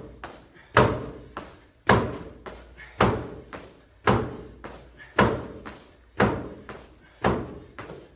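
Repeated jump landings on a rubber-matted gym floor: a sharp thud about once a second, each fading out in a reverberant room.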